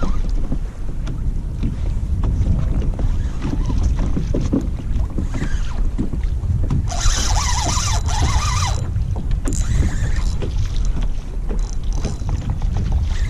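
Wind buffeting the microphone on a kayak, a steady low rumble, with a brief hissing burst lasting under two seconds about seven seconds in.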